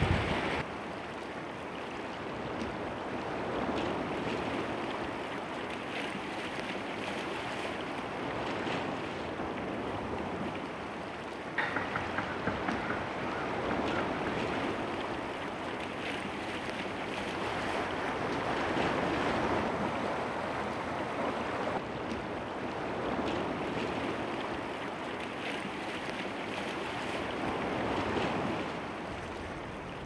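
Lake Superior waves washing on a rocky shore, a rushing noise that swells and ebbs every few seconds, with some wind. A quick run of clicks comes about twelve seconds in.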